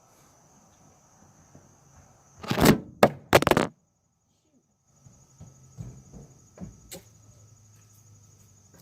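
A BB gun being handled and fired: a loud thump about two and a half seconds in, followed quickly by two sharp clacks, then a few light clicks.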